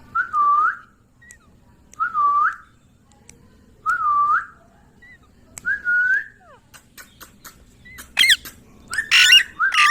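Pet ringneck parrot giving four short whistles about two seconds apart, each one dipping and then rising in pitch. Near the end they give way to a quick run of harsher squawking calls.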